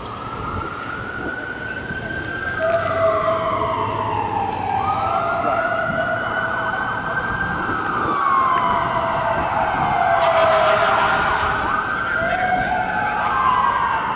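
Fire engine and ambulance sirens sounding a manually worked wail. The pitch rises, holds for uneven lengths and falls again, with two sweeps overlapping at times, and the sirens grow louder as they come closer.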